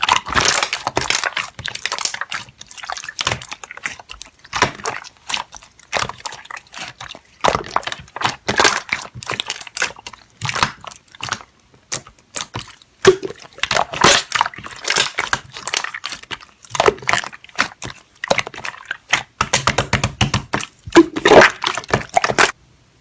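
Slime being squished and poked by hand: irregular wet crackling and popping that comes in clusters, stopping just before the end.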